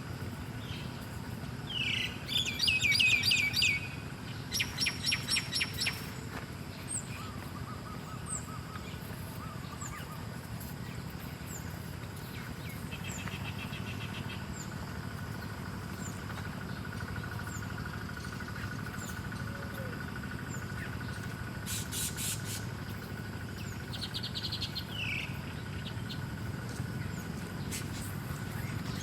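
Small songbirds chirping and trilling in short bursts of quick repeated notes, loudest in the first six seconds and again late on, with faint high chirps repeating about once a second in between. A steady low rumble runs underneath.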